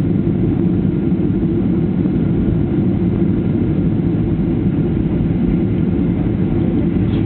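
Steady low rumble of engine and airflow noise inside an airliner cabin during the landing.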